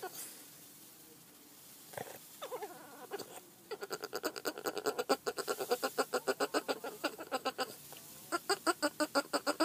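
Boston terrier making a rapid stuttering vocal sound, about eight pulses a second, in a long run of about four seconds and then a shorter one near the end. A couple of short falling whines come before it.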